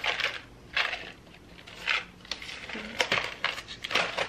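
Small plastic nail-kit items and packaging being handled and put away: a series of separate light clicks, clatters and rustles, spaced a second or less apart.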